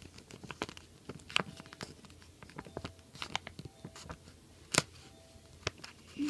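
Handling noise from a plastic binder page crinkling, with scattered light clicks and taps as a pin is worked into the sleeve. The sharpest click comes just under five seconds in.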